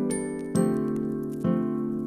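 Background music: gentle pitched notes struck together about once a second, each fading before the next, twice within this stretch.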